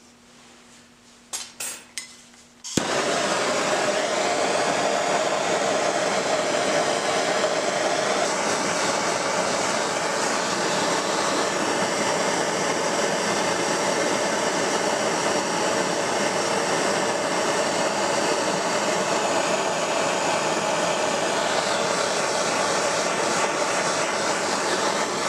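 A few light clicks, then about three seconds in a propane torch flame starts with a steady, even hiss that holds unchanged, preheating a steel part and fixture for brazing.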